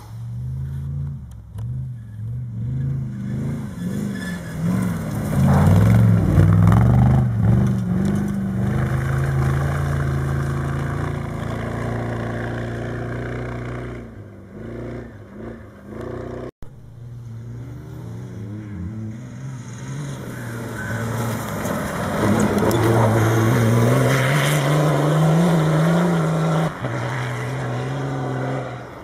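Cross-country rally cars at speed on a dirt track, one after another: an engine note rises and falls as the first car goes by, then after a sudden cut a second car passes, its engine pitch rising near the end.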